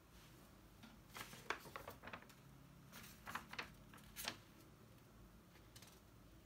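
Notebook pages being turned by hand: a handful of short, faint paper rustles between about one and four and a half seconds in.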